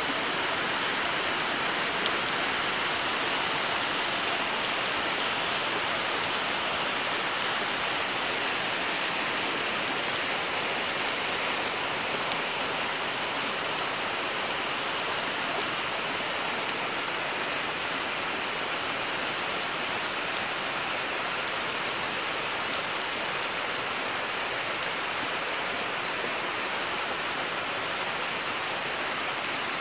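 Heavy rain falling steadily, splashing into puddles on waterlogged ground.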